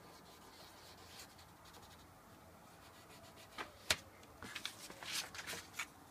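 Hands rubbing and sliding a sheet of paper over a paper-covered tabletop, with one sharp tap about four seconds in and a quick run of rustles and scrapes after it.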